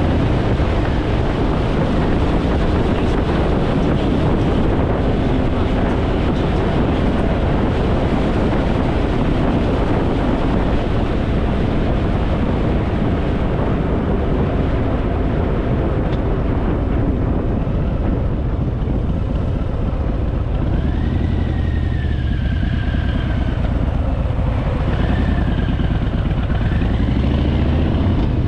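Harley-Davidson Fat Boy's V-twin engine running steadily at road speed, with wind rushing over the microphone. Its pitch rises near the end.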